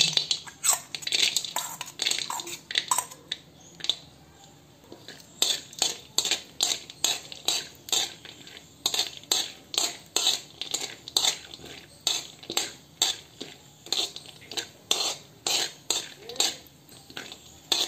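A metal spoon scraping and clinking against a metal kadhai as chopped almonds are stirred and roasted in a little ghee. The strokes come about two a second, with a short pause about four seconds in.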